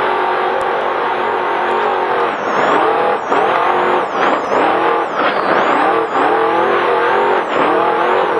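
Trophy truck's race engine at full throttle over a constant rushing noise. From about two seconds in, the revs climb and fall back again and again, roughly once a second.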